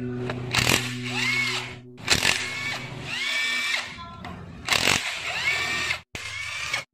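Cordless drill driving screws on a scooter engine's magneto stator plate, its motor whirring up in short bursts of about a second, several times over.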